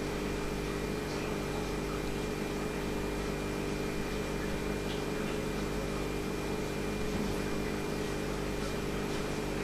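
Steady electric hum of an aquarium's internal filter pump running, over an even hiss of moving water and air bubbles.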